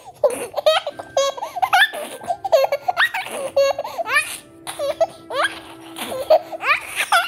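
A toddler laughing in quick repeated bursts, many of them rising sharply in pitch.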